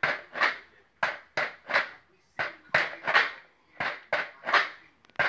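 Homemade shaker, a plastic bottle half-filled with dried pasta, rattling in a steady rhythm as it is shaken and knocked with a spoon. The beats come in repeated groups of three, roughly a second and a half apart.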